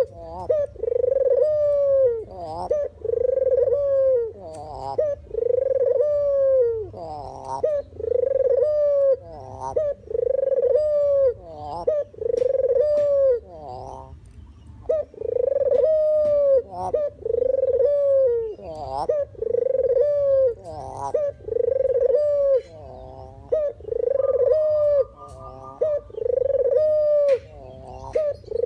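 Puter (deruk) dove cooing: the same low coo phrase repeated about once a second, with a brief pause about halfway through.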